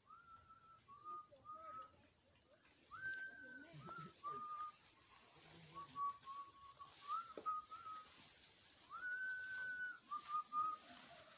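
A slow whistled melody of held notes that step up and down in pitch, its longest and highest note coming back about every six seconds, over faint, regular high-pitched chirping.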